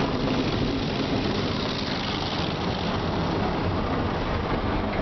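Ceccato Vantage car wash machine's rotating brushes scrubbing over the car's body and windows, heard from inside the car's cabin: a steady, dense scrubbing noise with a low rumble.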